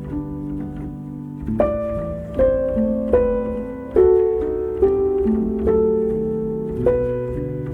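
Background music: slow piano notes struck one after another over held low notes.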